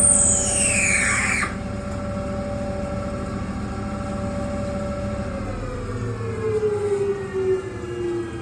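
Tormach Slant-Pro CNC lathe machining a brass part, its spindle giving a steady whine. A loud high squeal falls in pitch over the first second and a half. About five and a half seconds in, the whine glides steadily down in pitch as the spindle slows.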